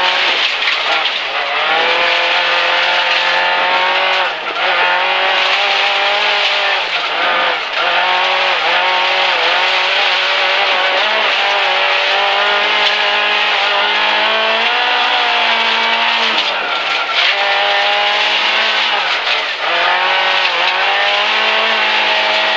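Suzuki Swift 1.3-litre rally car's four-cylinder engine heard from inside the cabin, driven hard along a gravel stage, with tyre and gravel noise. The revs climb and then drop sharply about four times, at gear changes and lifts for bends.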